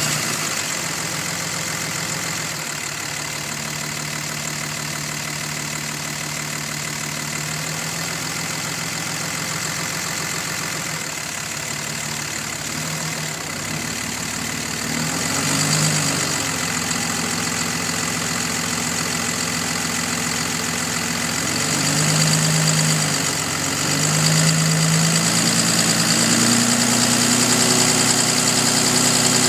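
A 2005 Dodge Ram 2500's 5.9 Cummins inline-six turbo-diesel idling steadily with a faint ticking or knocking whose cause the owner does not know. The idle swells louder briefly a few times in the second half.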